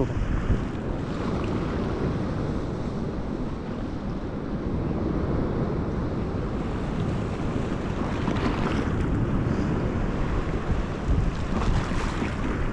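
Sea surf washing in, with wind buffeting the microphone as a steady low rumble. The surf swells louder about eight seconds in and again near the end.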